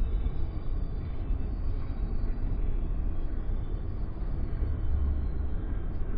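Beachfront outdoor ambience dominated by a steady low rumble, with a noisy hiss above it and no clear single event.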